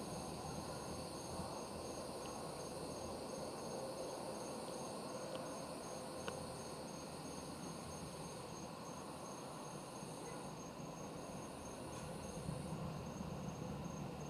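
Crickets chirping: a steady high trill, with a fast pulsing chirp running alongside it. The trill breaks off about ten seconds in and stops near the end.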